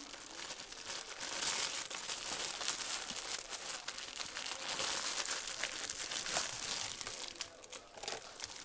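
Clear cellophane treat bag crinkling continuously as fingers work at its tied bow and pull the bag open, easing briefly near the end.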